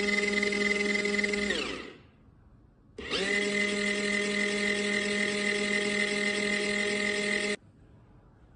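Small electric motor of a portable mini washing machine running with a steady hum. It winds down and stops a little under two seconds in, starts up again about a second later, then cuts off abruptly near the end.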